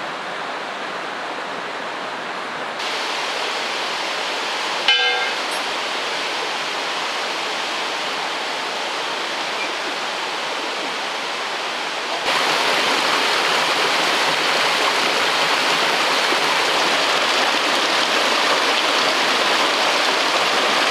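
Steady rush of flowing water, like a river or stream, growing abruptly louder twice, about three and about twelve seconds in. A short pitched sound comes about five seconds in.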